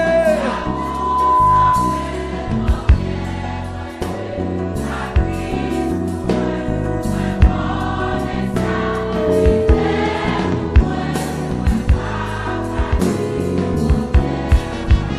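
Gospel worship song: a choir singing over drums and bass, with no lead words clearly picked out.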